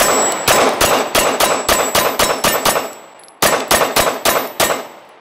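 Glock 17 9mm pistol fired rapidly: a quick string of about ten shots at roughly five a second, a pause of about a second, then another quick string of about seven shots.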